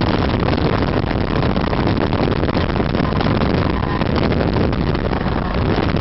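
Snowmobile running at speed: steady engine and track noise, with wind buffeting the microphone.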